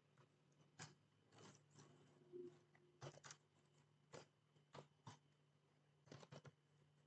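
Faint computer keyboard keystrokes, a dozen or so irregular clicks with short pauses between them, over a faint steady low hum.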